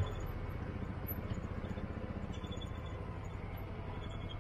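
Side-by-side UTV engine running steadily at low speed along a dirt trail, heard from on board as a low, even rumble.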